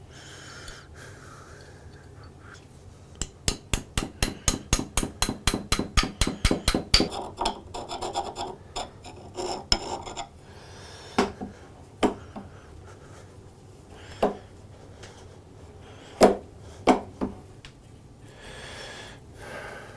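Hand work on the metal parts of an antique foot-powered mortiser: a quick run of about thirty light taps over some four seconds, then scraping, then a few separate knocks.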